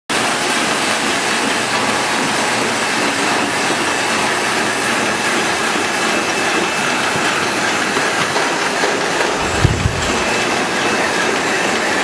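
Rotary dishwasher-tablet press running steadily alongside its vacuum powder feeders: a continuous loud mechanical noise with a thin steady high whine. A single low thump comes near the end.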